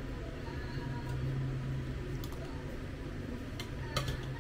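A few light clicks of a spoon and fork against a plate while eating, over a steady low hum.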